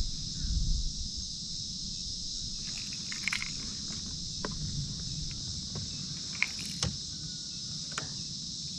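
Steady high-pitched drone of an insect chorus, with scattered light clicks and taps of fishing gear being handled on a kayak, the sharpest a pair of taps past the middle.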